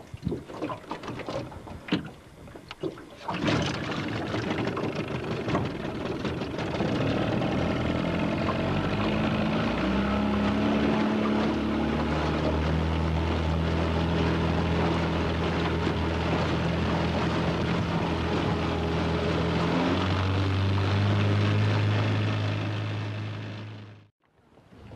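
Small tiller outboard motor on an aluminium skiff: a few knocks and clatter, then from about three seconds in the motor runs steadily, its pitch stepping up as the throttle is opened and the skiff gets under way. The sound cuts off suddenly near the end.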